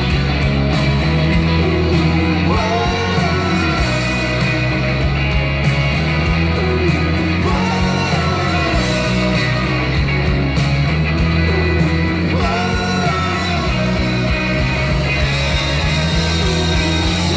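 Live rock band playing a song: electric guitars, bass and drums, with a man singing.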